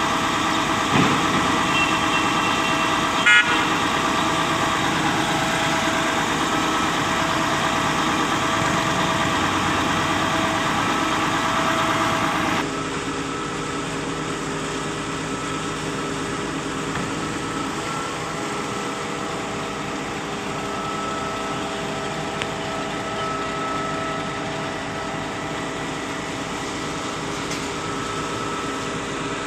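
Truck-mounted concrete pump running steadily, its engine and hydraulics making a constant hum with steady whining tones. A short horn toot comes about three seconds in. About halfway through, the sound drops abruptly to a quieter, lower-pitched steady run.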